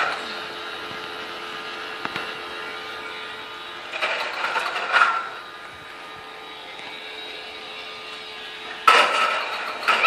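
Small battery fan motor of a Bubble Blowout toy bubble machine humming steadily, with a steady tone. A louder sound swells briefly about four to five seconds in, and another loud sound starts near the end.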